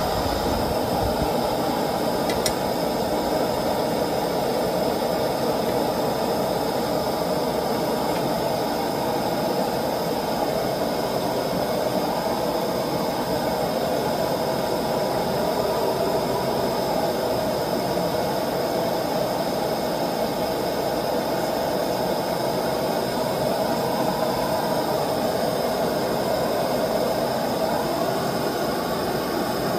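Gas burner of a small melting furnace running flat out, a steady, even rushing noise that does not change.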